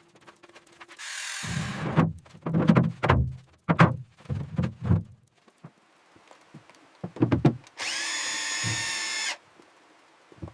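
Knocks and thumps of building work, then a power drill running steadily for about a second and a half near the end.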